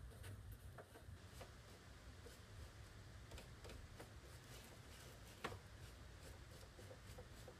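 Near silence: a paintbrush stroking and dabbing paint on paper, heard only as faint irregular light ticks, one a little louder about five and a half seconds in, over a low steady room hum.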